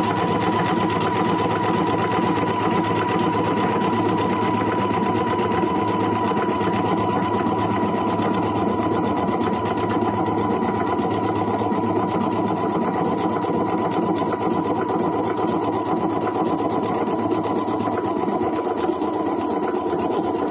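Husqvarna Viking Epic 95Q computerized sewing machine stitching continuously at a steady speed, sewing out a programmed repeating decorative stitch pattern: rapid, even needle strokes over a steady high motor hum.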